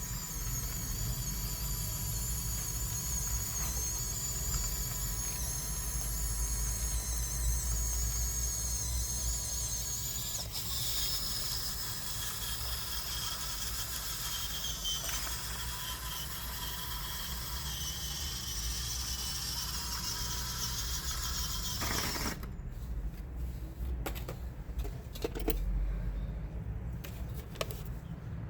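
Electric drive motors and gearboxes of an upgraded Huina 1554 RC bulldozer whining at a high pitch that wavers as it works, over a low rumble. The whine stops about 22 seconds in, leaving a few scattered clicks.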